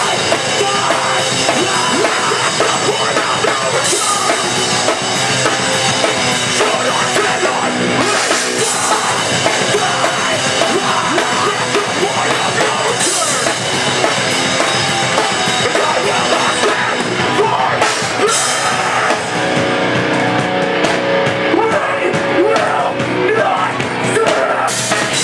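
Loud live rock band playing: drum kit with a crash cymbal hit every four or five seconds, electric guitar, and a vocalist shouting into the microphone.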